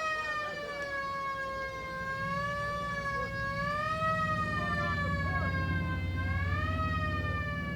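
Air raid siren wailing, its pitch sinking slowly and climbing again about four seconds in and near the end. A low hum sits underneath from about two seconds in.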